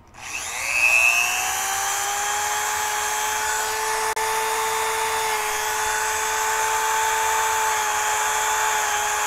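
Goxawee rotary tool on its lowest speed setting, spinning up to a steady high whine over about the first second. A felt buffing wheel is lightly tapped against a plastic remote-control button housing to burnish it.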